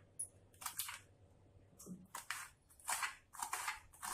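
Kitchen knife cutting an onion finely on a chopping board: a series of short crisp cuts, about one every half second, with a pause about a second in.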